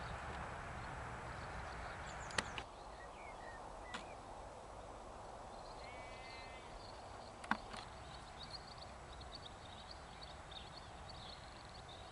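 Quiet outdoor ambience: a steady background hiss with small birds twittering and a few sharp clicks, the loudest about two and a half and seven and a half seconds in.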